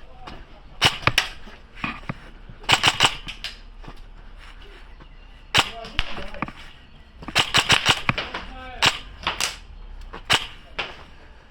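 Airsoft guns firing in short bursts and single shots: clusters of sharp cracks about a second in, around three seconds, then near six and in a denser run around seven to eight seconds, with scattered shots after.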